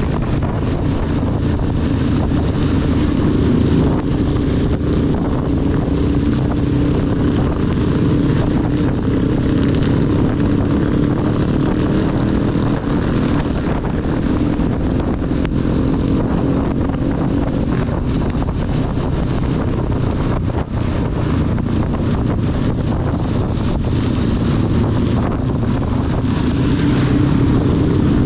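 Honda CB 250 motorcycle engine running steadily while riding, its note wavering slightly, over a constant hiss of wind and heavy rain on the microphone.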